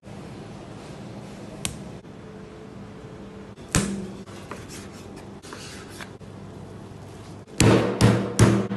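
Quiet background music with a couple of sharp knocks, then a fast, regular run of loud heavy thuds, about four a second, starting near the end.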